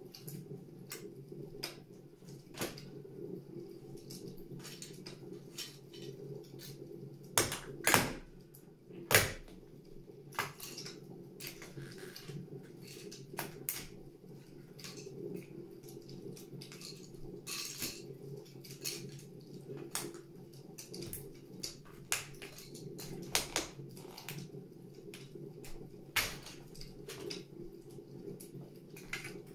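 Plastic toy train carriages cracking and crunching under a stiletto heel: scattered snaps and creaks, with two loud cracks about a third of the way in, over a steady low hum.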